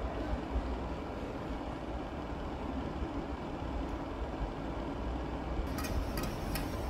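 Steady low background rumble, with a few sharp taps near the end as a chef's knife cuts a tomato into wedges on a plastic cutting board.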